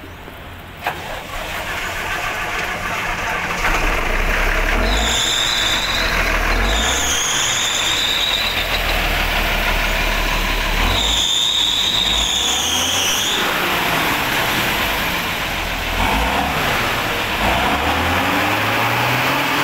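Diesel coach engine being restarted after a fuel filter change let air into the fuel line: after a click about a second in it catches and builds up to a loud, uneven run. It is revved, with a high squeal twice and the pitch rising near the end.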